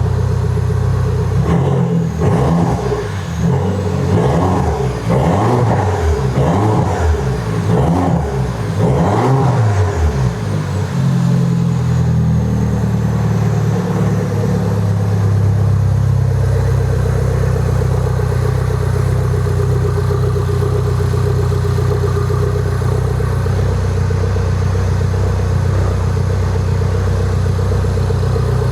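Mini Cooper S engine being revved repeatedly, its pitch rising and falling about once a second, then settling to a steady idle about twelve seconds in.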